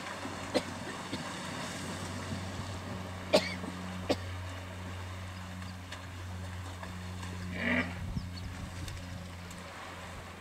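Hippos in the river with one short, rough cough-like snort about three quarters of the way through, over a steady low engine hum; a few sharp clicks, the loudest about a third of the way in.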